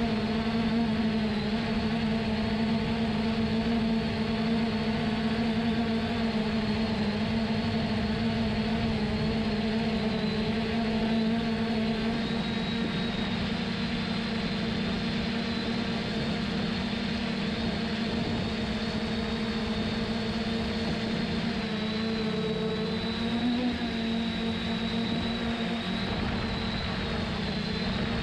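A 3DR Solo quadcopter's electric motors and propellers whirring steadily in flight, heard up close from the GoPro mounted on the drone. Late on, the pitch wavers briefly as the motors change speed.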